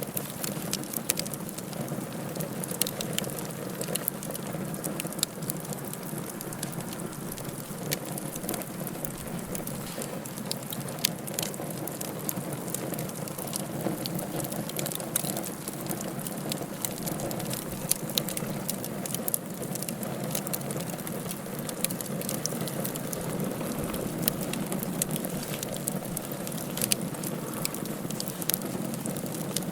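Wood fire burning in a fireplace: a steady hiss with frequent sharp crackles and pops scattered throughout.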